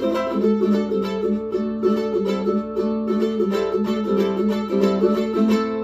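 Luna High Tide 8-string ukulele played solo, a steady run of plucked notes and chords with its paired strings ringing together.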